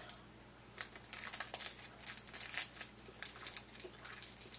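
A caramel wrapper crinkling in the fingers: a run of small, irregular crackles starting about a second in.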